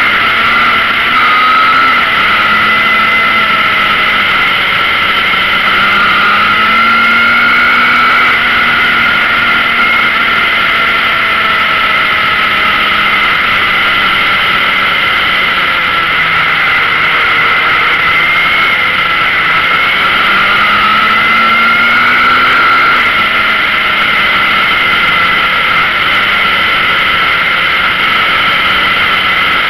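Onboard sound of a Yamaha XJR motorcycle's air-cooled inline-four running at steady road speed, with wind noise over it. The engine note rises a little about six seconds in, eases back, then rises again around twenty seconds before dropping off.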